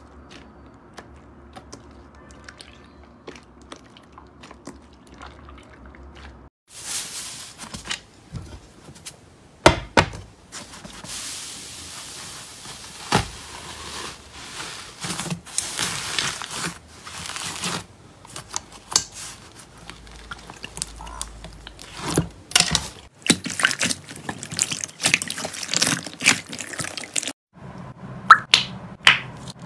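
Slime squeezed and kneaded by hand: wet squelching with many sharp clicks and pops, faint for the first several seconds and then louder. In the stretch with fluffy slime, air is pressed out of it in pops.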